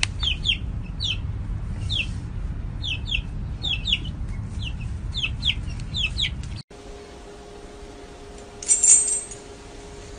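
A young chick peeping: a string of short, high peeps, each falling in pitch, coming irregularly over a low rumble. About two-thirds of the way through it cuts off to a quieter steady hum, with one brief high-pitched sound near the end.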